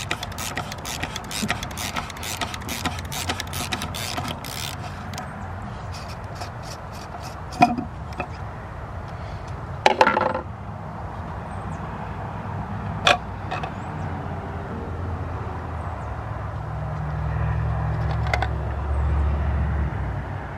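Rapid clicking for the first few seconds, then a few separate knocks and plastic clatter, as the plastic canister oil filter housing of a 3.6 L Pentastar V6 is unscrewed and pulled apart. A low rumble comes in near the end.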